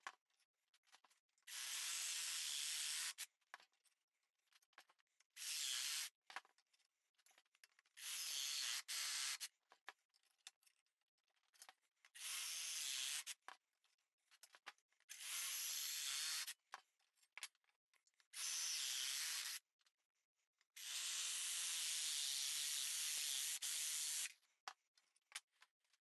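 A saw blade cutting through steel angle iron clamped in a vise, in about seven separate spells of one to three seconds each with silence between, the longest near the end.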